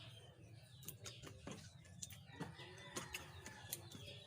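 Faint bird chirps in the background, with scattered light clicks and taps from eating.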